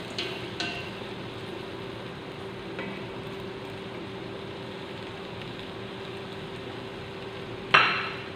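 Food sautéing quietly in a stainless steel pot, a steady low hiss, with a couple of light taps of a nylon spatula against the pot in the first second. About three-quarters of the way through comes a single sudden loud clink.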